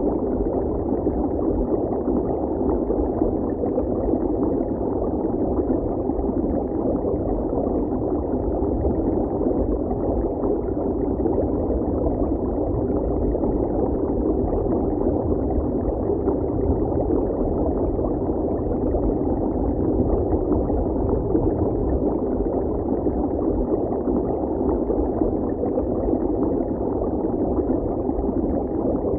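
Steady, muffled underwater-style water ambience: a dull continuous rush with a low rumble and no high sounds, unchanging throughout.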